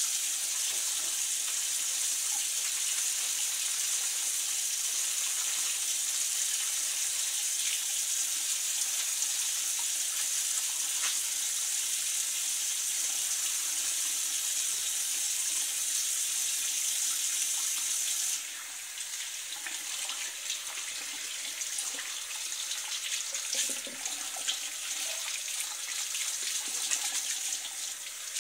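Bathroom sink faucet running steadily into the basin while a soapy disposable face mask is washed by hand beside the stream. About two-thirds of the way through, the steady rush turns quieter and uneven, splashing as hands rinse under the water.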